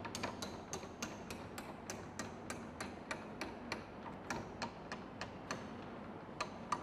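Faint, evenly spaced mechanical ticking, about three ticks a second, from the paddle drive of an Electrolab TDT-06L USP dissolution tester running with its paddles turning.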